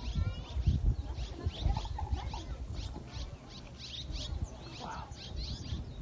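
Swallows twittering: a rapid, continuous stream of short, high, falling chirps, several a second. A low rumble with a few dull thumps runs underneath.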